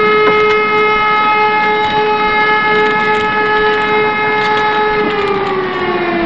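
Civil defense siren sounding one long steady tone, then winding down with its pitch falling from about five seconds in.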